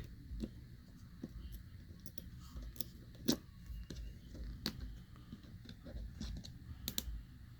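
Irregular small clicks and light scrapes of a small tool working a tight screw on a phone's metal back plate, the sharpest click about three seconds in.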